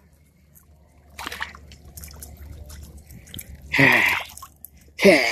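Water splashing and dripping as a hooked crappie is brought out of the water, with a short splash about a second in. Two short vocal exclamations come near the end.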